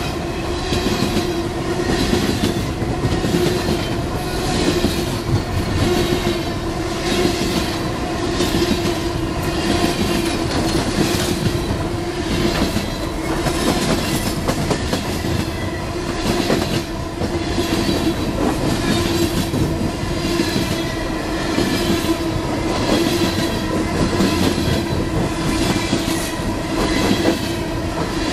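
Coal cars of a long freight train rolling past: steel wheels clacking over the rail in a beat of about once a second, over a steady rumble, with a continuous squealing ring from the wheels.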